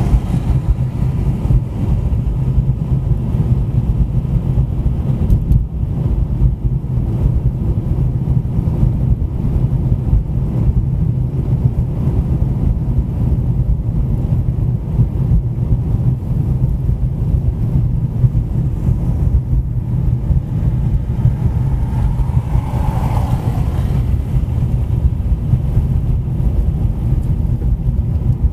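Car driving at steady speed: continuous low road and engine rumble with tyre noise, and a brief rising-and-falling swell about three-quarters of the way through.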